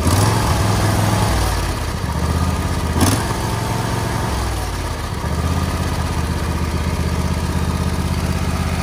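Briggs & Stratton engine of a John Deere LA120 lawn tractor running, its sound sagging twice and coming back, with a sharp click about three seconds in.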